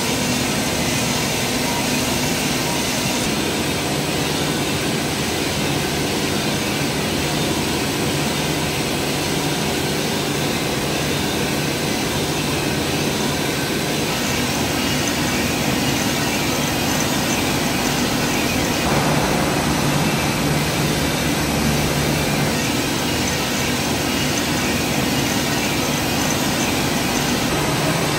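Drum coffee roaster running mid-roast: a steady, even whooshing noise with a low hum underneath.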